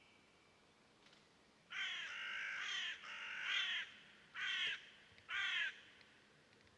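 A bird giving four loud, raspy calls, the first two drawn out for about a second each and the last two short.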